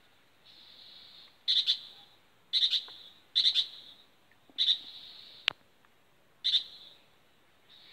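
A bird calling: five short, loud, harsh chirps about a second apart, with one sharp click about two-thirds of the way through.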